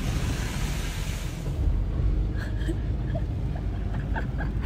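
Car driving, heard from inside the cabin. For the first second and a half there is a hiss of tyres on the wet, flooded road, then a low, steady road rumble.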